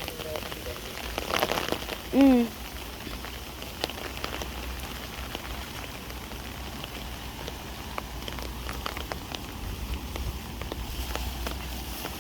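Steady rain falling and pattering on surfaces, with scattered sharper drop taps.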